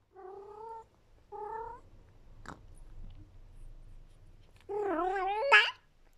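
Persian cat yowling: two short calls, then a louder, longer wavering howl near the end that jumps up in pitch. It is the delighted yowl she makes over very tasty food.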